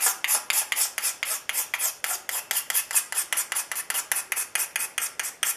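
A homemade scraper with a burred razor-knife blade scraping the old finish off a rosewood plane tote in quick, even, back-and-forth strokes, about seven a second.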